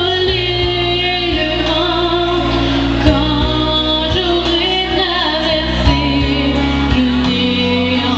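A girl singing a song into a microphone over amplified backing music with a steady bass line, with a couple of brief sharp hits about three and six seconds in.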